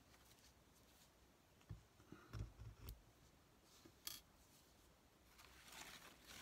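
Faint handling of paper-craft materials: a few soft knocks and a couple of sharp clicks, then paper rustling that grows near the end.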